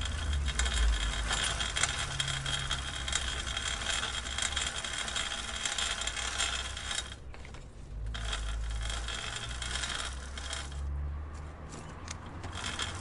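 Bicycle chain clicking and rattling over the sprockets, a dense run of fine clicks with a low rumble underneath. The clicking drops out briefly about seven seconds in, comes back, and thins to scattered clicks near the end.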